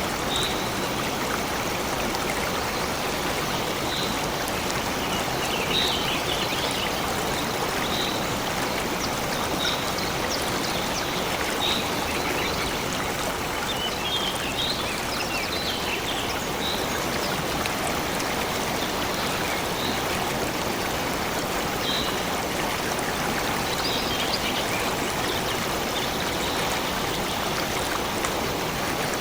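A stream flowing steadily, with short high bird chirps every couple of seconds.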